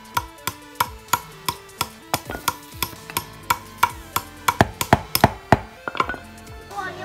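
Background music with a quick, even beat of sharp knocks. Between about four and five and a half seconds in, louder, less even knocks join, fitting a wooden pestle tamping a PVC rocket tube on a wooden block.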